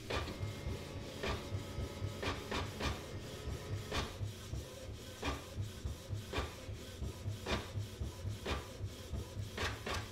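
Canon PIXMA MG3620 inkjet printer printing a black-and-white copy, the page feeding out, with a steady low hum and a light click about once a second.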